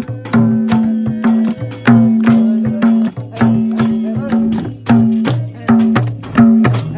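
A madal, the Nepali two-headed barrel drum, played by hand in a brisk steady rhythm: deep tuned strokes that ring briefly alternate with sharper slaps on the smaller head, about two to three strokes a second. A small hand-held tambourine jingles and taps along with it.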